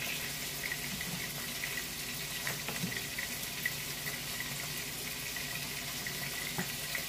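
Saucepan of chickpea rice at a rolling boil, bubbling steadily, with salmon fillets frying in oil alongside, a steady hiss with small crackles.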